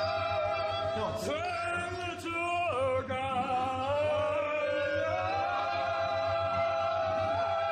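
A voice singing or vocalising a long held note, with swooping pitch slides down and up about one to three seconds in, then a steady note that steps up partway through, over a steady low pulse.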